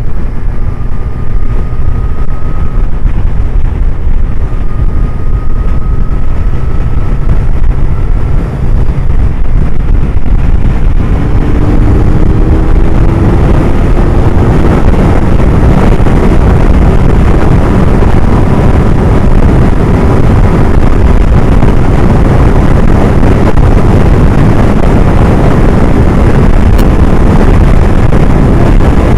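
Suzuki Hayabusa's inline-four engine running under way, mixed with a steady rush of wind noise. About eleven seconds in the engine note rises as the bike accelerates, then settles into a steady, fuller cruise.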